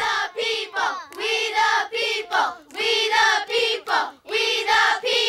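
A choir of high voices singing together in short phrases, each held mostly on the same note, with brief breaks between them.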